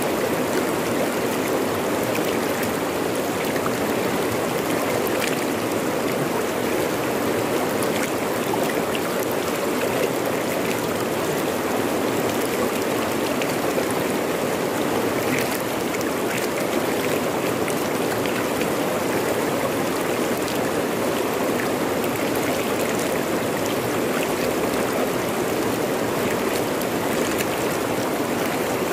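Fast-flowing river rushing over and around rocks, a steady unbroken rush of water.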